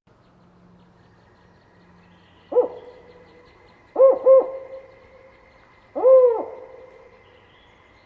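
Spotted owl giving its four-note hooting call: a single short hoot, a quick pair of hoots, then a longer final hoot that rises and falls in pitch, each note trailing off in an echo. A faint steady high-pitched tone runs beneath it.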